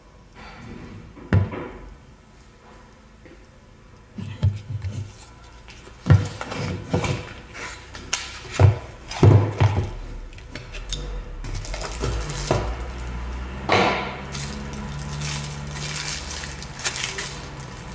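Cardboard box being handled on a wooden tabletop: a series of knocks and scrapes as it is set down and opened. In the second half, plastic wrapping crinkles as the grinder is unwrapped.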